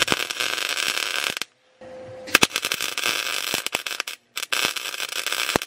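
Wire-feed MIG welder crackling as two steel brackets are tack-welded together, in three runs that each start and stop abruptly: about a second and a half, then two shorter ones.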